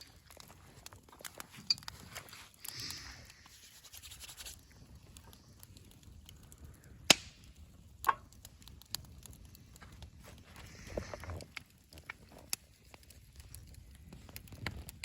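Campfire crackling faintly, with scattered clicks and two sharper snaps about seven and eight seconds in.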